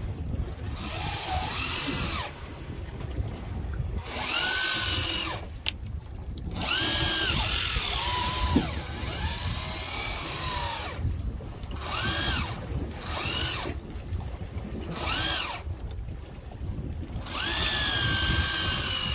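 Electric fishing reel motor winding line up from a deep drop in about seven separate bursts. Each burst is a whine that rises as the motor spins up and falls as it stops, the longest lasting several seconds. A steady low rumble runs underneath.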